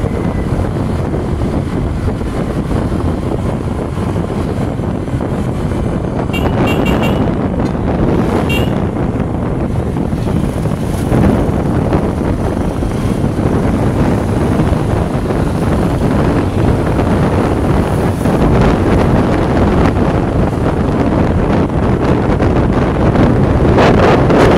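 Steady wind rush over the microphone while riding along a road, with the vehicle's engine and tyre noise running underneath.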